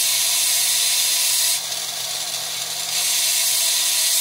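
Rotary carving tool's small bit grinding wet fire agate: a hissing grind over a steady motor whine. The grind eases off about a second and a half in and picks up again about three seconds in.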